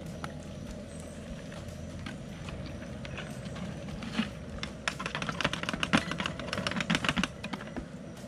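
Steady running noise of a propane burner heating a stockpot of water and beeswax. From about five seconds in, a quick run of clicks and taps while a plastic bucket is tipped out over the pot.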